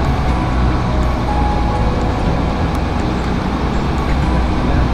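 The slow boat's engine running steadily with a constant low rumble, with water rushing along the wooden hull.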